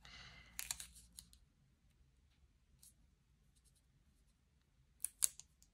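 Paper handling: a soft rustle of paper or a sticker sheet for about a second, then faint ticks, and two sharp light clicks close together near the end.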